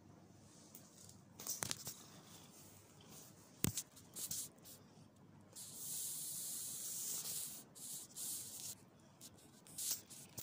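Soft rubbing and rustling close to the microphone as a hand strokes a long-haired cat's fur: a hissing rustle, loudest for about two seconds midway, with two sharp clicks about one and a half and three and a half seconds in.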